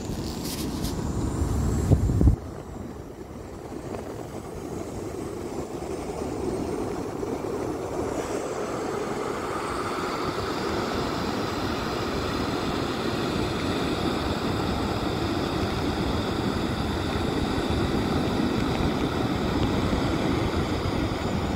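Air rushing out through the open twist valve of a large vinyl inflatable corgi as it is pressed down to deflate: a steady hiss that slowly grows a little louder. Vinyl handling bumps come in the first two seconds.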